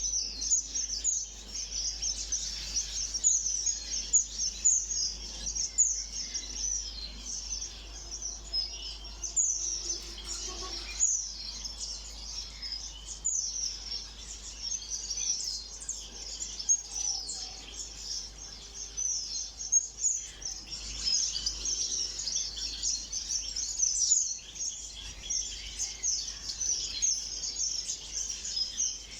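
A flock of small ornamental cage birds chirping continuously, many quick high-pitched calls overlapping.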